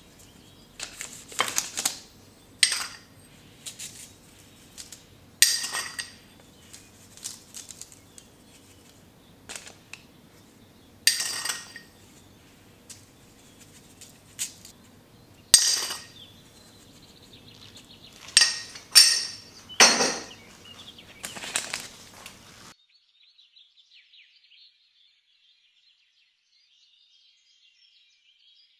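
A small metal mesh strainer being tapped and shaken to dust sugar over cake batter: about twenty sharp, ringing metallic taps at irregular intervals. They stop about 23 seconds in, and near silence follows.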